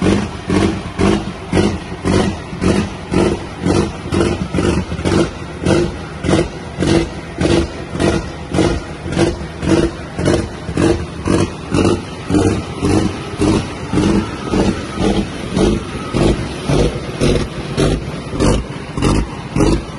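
Cummins 855 Big Cam diesel in a custom-cammed drag truck idling with a heavy, even lope of about two pulses a second.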